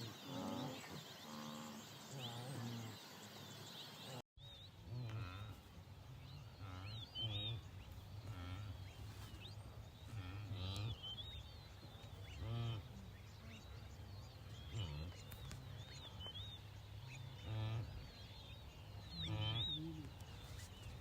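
Many short animal calls, repeated every second or two and overlapping, with higher bird chirps between them over a low steady hum.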